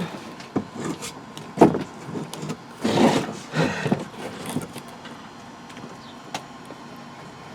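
Thin luan plywood panel being worked into place, rubbing and knocking against the camper's ceiling frame: several sharp knocks and short scrapes, then mostly quiet handling with one more click about six seconds in.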